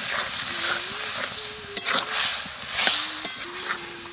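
Curry hissing and sizzling in a hot kadai just after water has gone into the spices, with a metal spatula stirring and clicking against the pan a few times.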